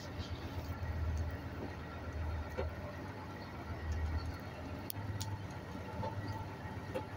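A semi-truck's diesel engine running at low speed, a steady low rumble heard from inside the cab, with a few faint clicks.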